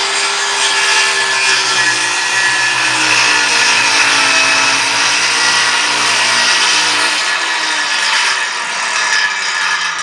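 Electric power tool running steadily under load, most likely cutting or shaping wood for a box, with a motor whine that drifts lower in pitch and shifts about seven seconds in.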